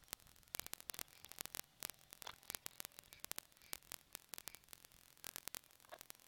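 Faint crackling static: many irregular sharp clicks over a low hiss.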